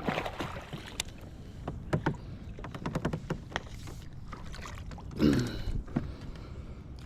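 Handling sounds in a kayak while a bass is brought in: scattered sharp clicks and knocks against the hull and gear over a low steady rumble, with a brief murmur about five seconds in.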